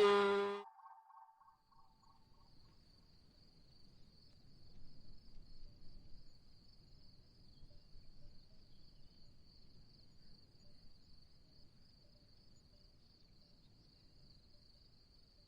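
Insects trilling: a faint, steady, high-pitched chirring that sets in about two seconds in and holds on, over a faint low background hum. A loud pitched tone cuts off within the first second.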